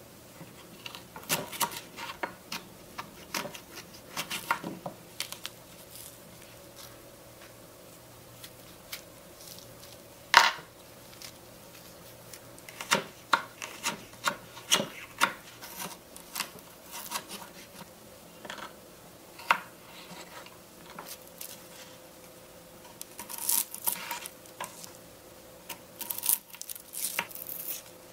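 Small knife slicing a bitter melon on a miniature wooden cutting board: irregular crisp cuts and taps of the blade on the board, with one sharper knock about ten seconds in.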